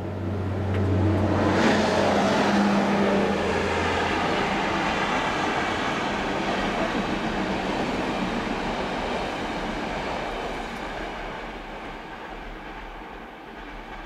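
Diesel-hauled passenger train passing. The ADtranz DE2000 locomotive's engine hums low for the first few seconds. Then the coaches' wheels on the rails give a steady rolling noise that fades away over the last few seconds.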